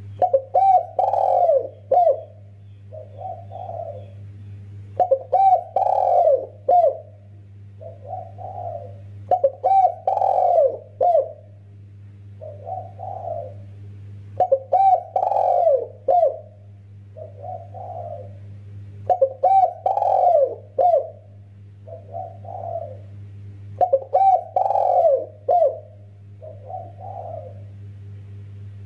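Spotted dove (tekukur) cooing: a loud phrase of several coos repeats about every four to five seconds, with a softer short coo between phrases, over a steady low hum.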